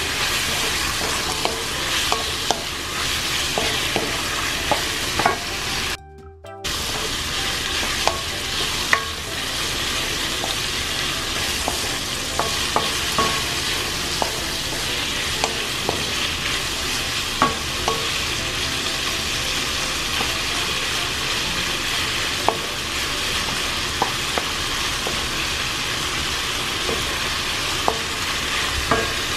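Chicken pieces and onion sizzling in oil in a nonstick wok, stirred with a wooden spoon that clicks and knocks against the pan many times. The sound cuts out for about half a second around six seconds in.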